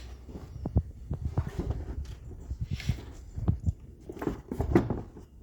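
Irregular clicks, knocks and clunks of hands and tools working on engine-bay parts while they are being unfastened and removed.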